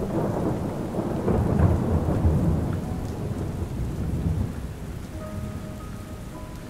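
Rolling thunder over steady rain: a low rumble swells at once, is loudest about one to two and a half seconds in, then dies away. The rain hiss carries on under it.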